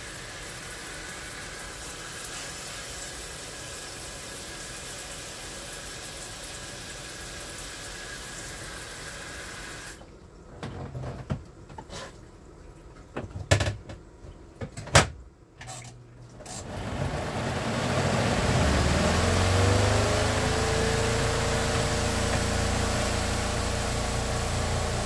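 Portable twin-tub washing machine: a steady noise, then a few knocks and clunks as the tub is handled. About 17 seconds in, its spin motor starts with a rising whine that settles into a steady hum.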